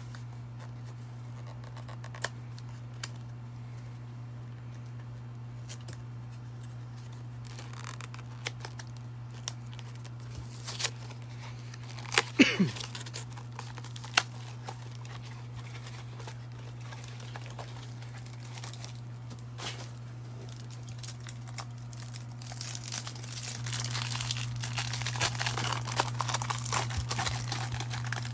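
Plastic wrapper on a stack of baseball cards crinkling and tearing as it is opened, starting about three-quarters of the way in, over a steady low hum. Before it come a few scattered clicks and one short, sharp sound near the middle.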